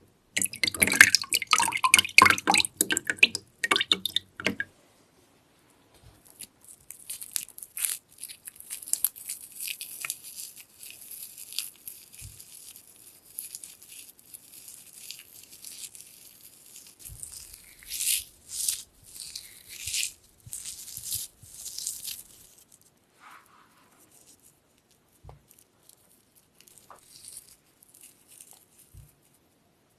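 Water splashing for about four seconds, then a long stretch of fine dripping and crackling that thins out to scattered drips near the end, as wet paper pulp is laid out into sheets.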